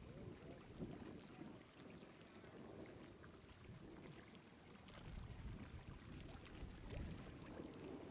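Faint wind buffeting the microphone: a low, uneven rumble that swells and fades in gusts.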